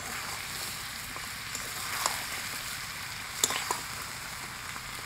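Chicken pieces in spice paste sizzling steadily in a hot wok as they are stir-fried, with a few light knocks of the spatula against the pan about two and three and a half seconds in.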